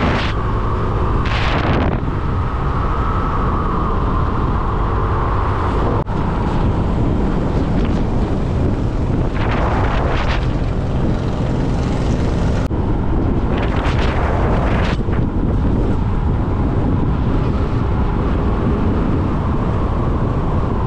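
Motorbike riding at speed: wind buffeting the microphone over the steady running of the engine, with three brief louder rushes of hiss, near the start, about halfway and about two-thirds in.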